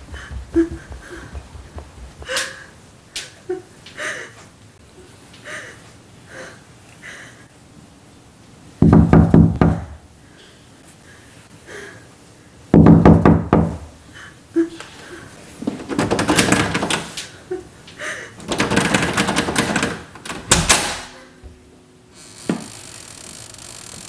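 Loud knocking in repeated bursts of rapid blows, with scattered fainter knocks before them. The bursts start about a third of the way in, come twice, then come several more times close together, and stop shortly before the end.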